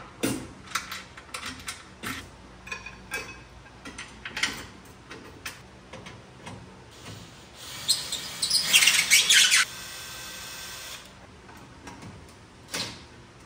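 Scattered clicks and knocks of metal hardware being handled, then a cordless drill running for a second or two about eight seconds in, driving a bolt home.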